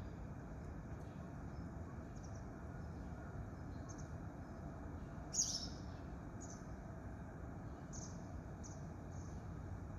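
A small bird giving short, high chirps, about seven of them scattered through, the loudest about halfway, over a steady low background rumble.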